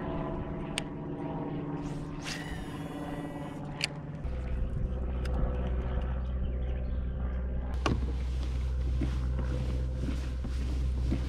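An engine drones steadily, and about four seconds in its tone drops lower and grows louder. A short high whir comes about two seconds in.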